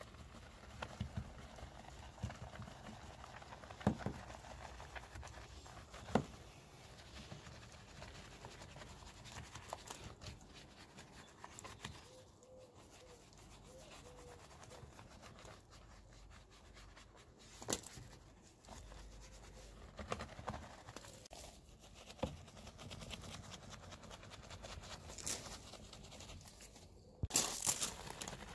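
Detail Factory ultra-soft detailing brush scrubbing foam on a plastic honeycomb bumper grille: faint, steady scratchy brushing with occasional light knocks of the brush against the plastic, which are loudest near the end.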